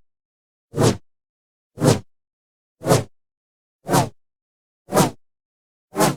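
A short, sharp sound effect repeated at even intervals, about once a second, six times, with complete silence between each one.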